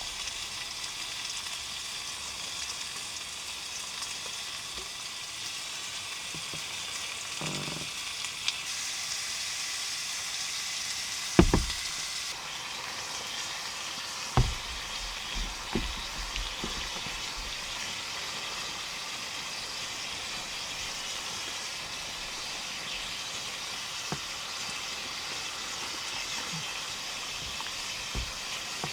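Food sizzling steadily in a hot pan, with a few sharp knocks, one about a third of the way in and another a few seconds later, like a utensil striking the pan.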